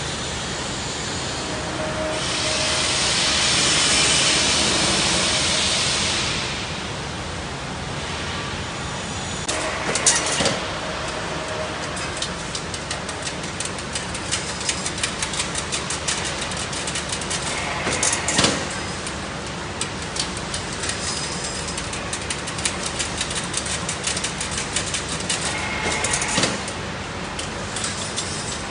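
Semi-automatic chain link fence machine running, twisting wire into spirals, with a steady mechanical drone and rapid ticking. A loud hiss rises for a few seconds near the start, and a few sharper metallic knocks stand out along the way.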